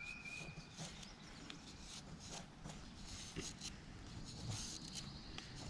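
Knife blade shaving thin curls off a wooden stick: faint, soft scraping strokes.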